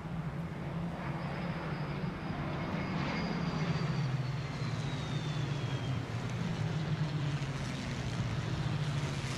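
Steady low engine-like drone under a rushing noise, with a thin high whine that glides slowly downward over several seconds near the start.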